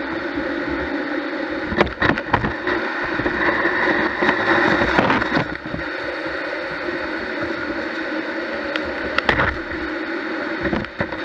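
Gutter vacuum running steadily as its nozzle, on a carbon-fibre pole, sucks moss and debris out of a roof gutter, with a few sharp knocks about two seconds in and again near the end.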